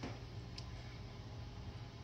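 Quiet room tone: a low steady hum, with a faint tick about half a second in.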